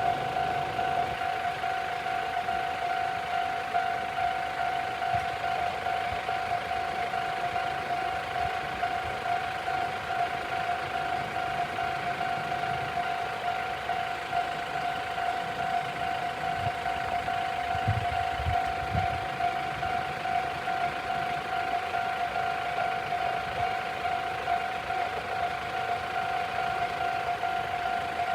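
Japanese railway level-crossing alarm ringing steadily and rapidly, a single repeated electronic tone, with a few low thumps about two-thirds of the way through.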